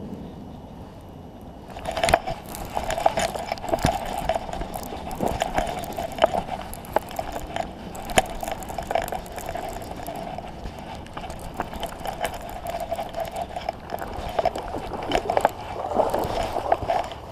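Baitcasting reel cranked steadily from about two seconds in, a continuous whirring with many small clicks, as a hooked bass is reeled in.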